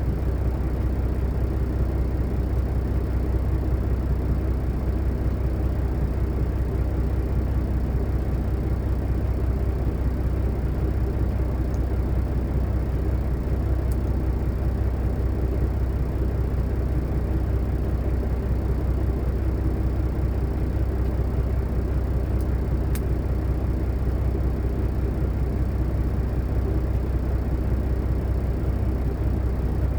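Diesel engine idling with a steady, unchanging low drone. A few faint clicks sit on top, around halfway through and again about two-thirds through.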